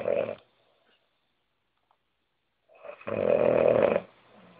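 A woman snoring loudly. One snore ends just after the start, then there is a pause of about two seconds, and a second loud snore comes about three seconds in and lasts just over a second.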